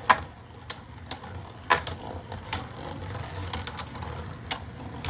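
Two Beyblade Burst spinning tops running in a plastic stadium just after launch, with a faint whir and irregular sharp clicks as they knock into each other and the walls, the loudest right at the start.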